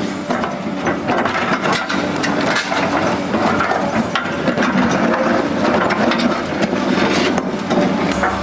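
Excavator engine running while its toothed bucket scrapes across and breaks up a concrete dam apron, with many sharp cracks and grinding crunches.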